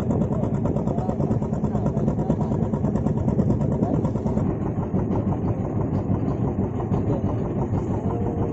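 A boat's engine running steadily at idle, with a fast even rumble.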